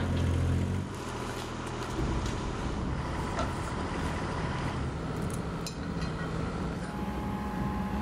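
A compact loader's engine runs with a strong low hum that drops away about a second in. After that a steady, rougher engine noise carries on.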